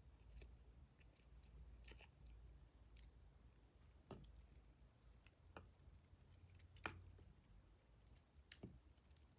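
Near silence with a few faint clicks and light rustles of copper-wire LED string lights and their USB plug being handled, over a low room hum.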